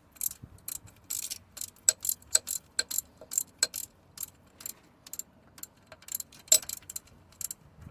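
Hand ratchet wrench clicking in an uneven series of sharp clicks, about two to three a second, while the power steering pump's bolts are being unscrewed; the clicking stops near the end.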